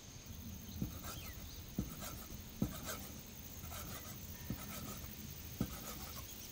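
Chinese cleaver cutting a rolled sheet of egg-noodle dough on a round wooden chopping block: five dull knocks of the blade hitting the wood, at uneven spacing, with soft rustling of the floured dough between strokes.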